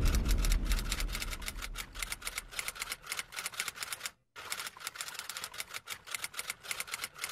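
Typing sound effect: rapid key clicks, several a second, with a short pause about four seconds in, while a low rumble fades out over the first few seconds.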